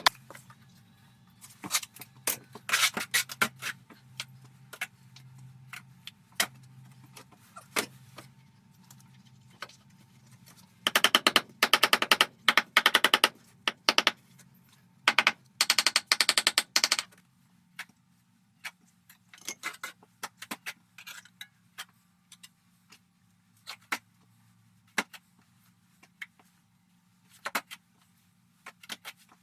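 Tools knocking and chipping at a clogged agungi firebox, scattered sharp knocks with two bursts of rapid clattering strikes about eleven and fifteen seconds in, over a faint steady hum.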